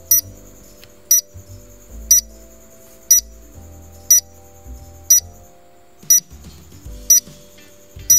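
Countdown timer sound effect beeping once a second, nine short high beeps, over soft background music.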